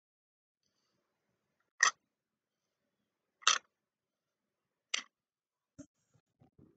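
Small wooden picture tiles set down one by one into a wooden tray: three sharp clacks about a second and a half apart, then a few faint taps near the end.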